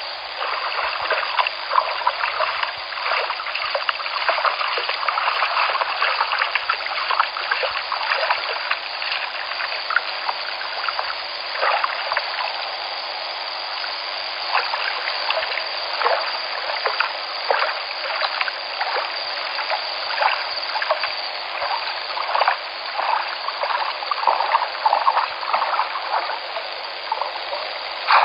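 River water flowing steadily, a continuous babbling rush with many small splashing flickers.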